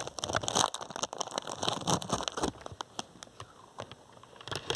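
Plastic snack packaging crinkling and rustling as it is handled, dense for the first couple of seconds, then thinning to scattered crackles.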